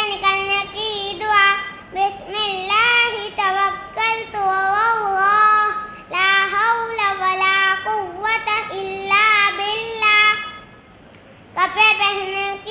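A young boy singing in a high voice, in long held melodic phrases with short breaks. It pauses for about a second near the end, then resumes.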